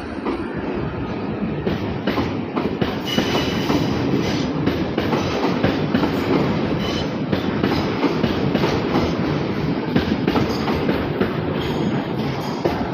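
AEG/Siemens 10th-batch electric metro train pulling out past the platform, its wheels rolling and clicking over the rail joints with a brief squeal now and then.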